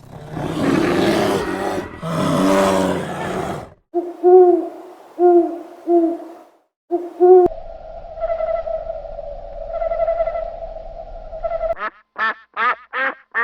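A sequence of animal calls. First comes a harsh, noisy call, then short hoots about a second apart, then one long steady hoot. Rapid short calls follow near the end.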